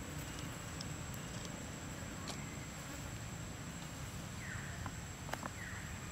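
Outdoor ambience: a steady high-pitched insect drone over a low steady rumble, with a few light clicks and two short falling chirps near the end.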